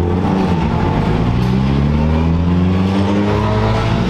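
Race car engine running and slowly rising in pitch over about three seconds, as when a car pulls away or accelerates.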